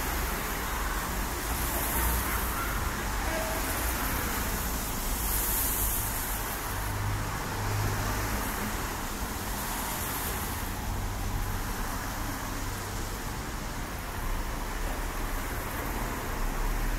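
Road traffic on a wet street: a steady low rumble of engines, with the hiss of car tyres on the wet road swelling as vehicles pass, about three times in the first ten seconds.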